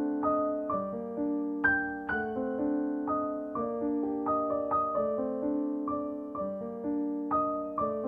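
Background music: a piano playing a slow, repeating pattern of broken chords, with a new note about every half second.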